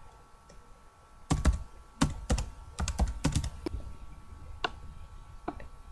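Typing on a computer keyboard: an irregular run of keystrokes, loudest in the middle, thinning to a few faint taps near the end.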